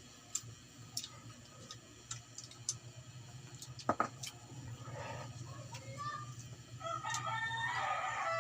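A rooster crowing in the background, one long call near the end, over scattered light clicks.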